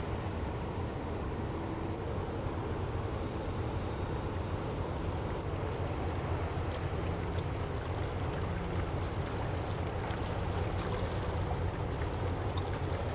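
Steady low rumble of a German Federal Police coast guard patrol vessel's engines as it passes along the canal, with a wash of water and wind.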